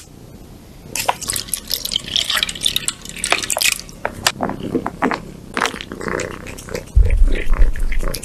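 Cat licking and eating wet food from a bowl, quick wet smacking and squelching clicks, with the squish of a liquid cat treat being squeezed out of its pouch onto the food. A loud deep rumble comes in near the end.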